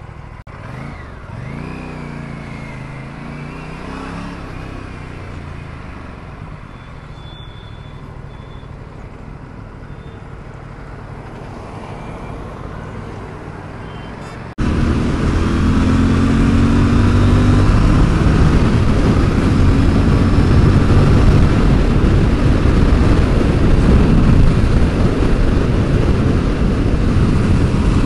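Motorcycle on the move: engine and road noise, with an engine note rising and settling a second or two in. About halfway through the sound cuts abruptly to much louder, steady wind and engine noise, as at riding speed.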